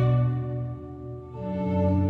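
Background orchestral music with slow, sustained string chords that swell and fade, changing chord about halfway through.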